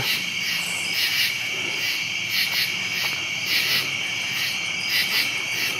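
Chorus of night insects: a steady high-pitched trill with rhythmic chirping pulses over it.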